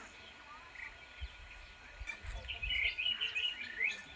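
Several wild birds chirping and calling, with a burst of quick, loud chirps from about two seconds in. Low thuds sound underneath.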